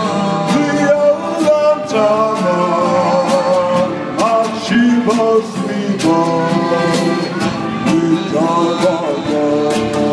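A man singing lead into a microphone with a live band behind him: acoustic guitar and a drum kit with cymbal hits keeping a steady beat.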